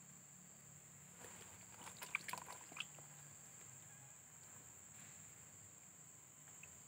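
Steady high-pitched insect drone, like crickets, with a short cluster of clicks and rustles between about one and three seconds in.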